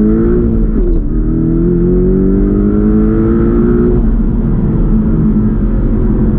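Porsche 718 Cayman GTS's turbocharged flat-four engine under acceleration, heard from inside the cabin: revs climb, drop sharply about a second in at a gear change, then climb steadily again until they level off about four seconds in.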